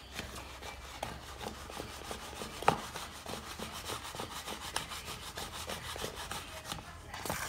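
A spoon stirring thick batter in a bowl, scraping against the bowl's side in quick, even strokes, with one sharp knock of the spoon a little under three seconds in.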